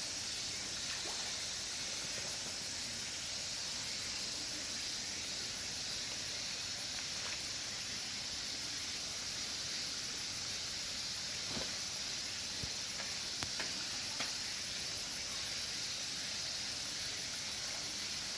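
Insects chirring in a steady, fast pulsing drone over a constant hiss, with a few faint clicks about two-thirds through.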